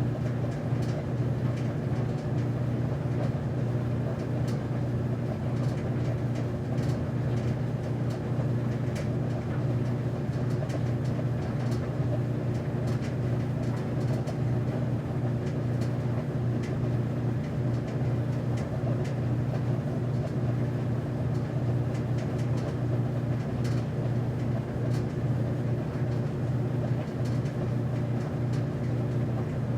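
Commercial laundromat washer-dryer running: a steady motor hum under the drum turning over, with faint light clicks scattered through.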